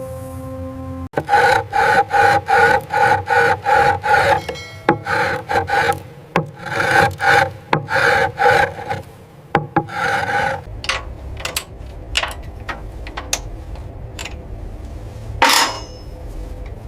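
Rhythmic back-and-forth rasping strokes of a hand tool scraping a surface, about three a second for roughly nine seconds, then a few scattered sharp clicks and one short louder scrape near the end.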